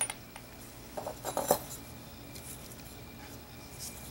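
Light metallic clicks and clinks of small brass binocular parts being handled and set down on a hard bench: one click at the start, then a quick cluster of several about a second in, the last of them the loudest.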